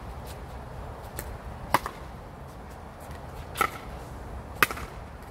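Pickleball rally: paddles striking the plastic ball with sharp pops, three loud hits a second or two apart, with a few fainter taps between them.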